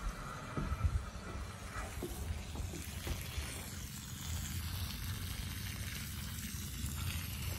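Water running out of the end of a thin black hose onto soaked grass, a steady splashing hiss, with a few low footstep thumps about a second in.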